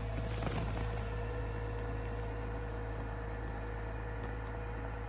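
Pickup truck engine idling steadily: a low, even hum with a faint steady tone above it.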